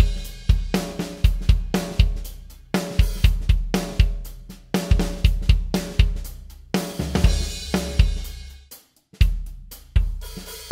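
Outro music driven by a drum kit, with bass drum, snare and cymbals over a bass line. It drops out briefly about nine seconds in, then comes back with one more hit that rings on.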